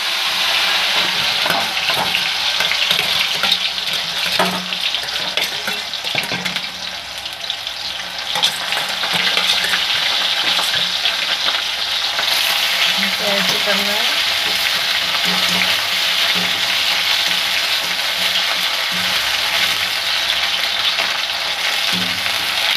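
Freshly added cut potatoes frying in hot oil in a wok, a steady loud sizzle. A metal wire skimmer clinks and scrapes against the wok a few times as the fries are stirred.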